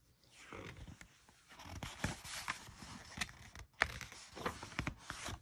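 Pages of a paperback picture book being opened and turned by hand: irregular paper rustling and crinkling with many small sharp snaps.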